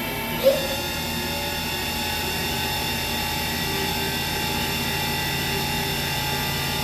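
Haas VM3 CNC mill spindle running at a steady high speed, a whine made of several steady tones; its sound shifts about half a second in as it settles at the new speed.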